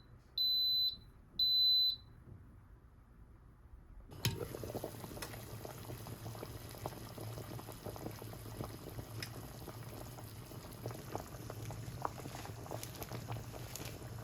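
A kitchen appliance's control panel beeps twice, short and high-pitched. About four seconds in, a steady crackling hiss starts suddenly: food cooking in a pot on the stove.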